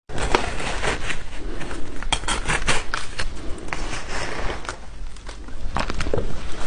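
Ice being bitten and chewed close to the microphone: a run of irregular, crisp crunches, easing off briefly a little after the middle.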